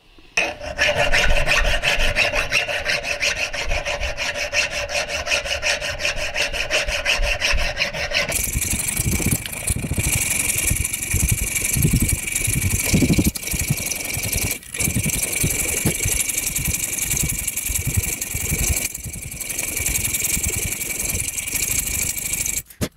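Round file rasping back and forth in the notch of a rusty steel railroad spike, shaping the groove and undercut of a bottle opener. Steady repeated strokes; about eight seconds in the sound turns brighter and hissier.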